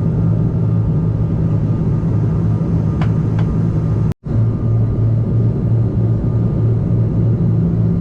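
Steady engine drone inside an airliner cabin in flight, with a brief total dropout just past four seconds in.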